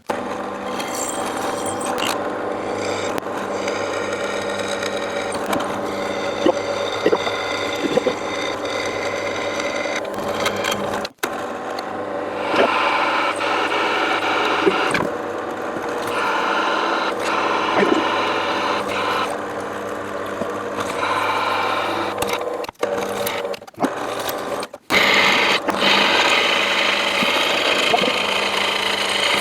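Power tool with a wire wheel running steadily, scrubbing rust off metal parts. The sound brightens and dulls every few seconds as the wheel is pressed on and eased off, and it cuts out briefly a few times.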